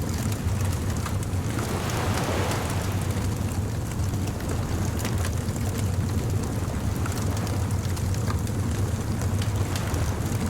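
Beach bonfire ambience: a fire crackling with fine scattered pops over a steady low rumble, with a brief swell of rushing noise about two seconds in.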